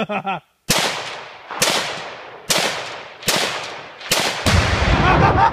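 Rifle fired rapidly, five shots a little under a second apart, each echoing. About four and a half seconds in comes a heavier blast with a deep rumble: the Tannerite-packed safe exploding.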